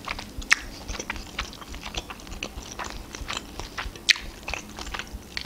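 Close-up chewing of pelmeni and mushroom salad, with wet mouth clicks throughout. There is a sharp click about half a second in, and a metal fork clinks against the plate as it digs into the dumplings near four seconds in.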